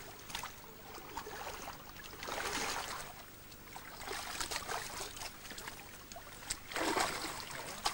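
Shallow river water sloshing and splashing in several surges as people wade and grip a giant wels catfish lying in the water. The last surge, near the end, is the loudest.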